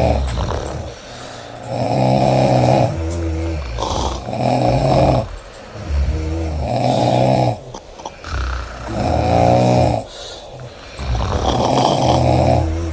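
Women snoring loud, with a big snore about every two seconds and softer, more tuneful snores in between.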